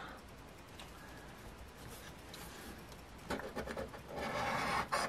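Coin scratching the coating off a scratch-off lottery ticket, a quick run of short rasping strokes that starts about two-thirds of the way in.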